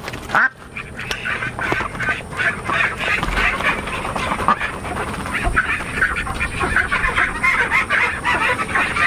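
A pen of Australian spotted and Runner-mix ducks quacking and chattering, many short calls overlapping into a steady din that builds about a second in.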